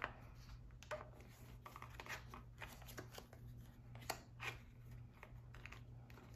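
Faint clicks, taps and light rustling of two decks of playing cards being slid out of their two-deck case and set down on a tabletop, with a few sharper taps near 1, 2 and 4 seconds in.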